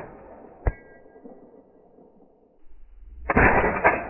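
Suppressed AR-15 shots. The echo of one report dies away, a sharp metallic tink with a brief ring comes about two-thirds of a second in, and the next loud suppressed shot comes near the end, with a second sharp crack about half a second after it.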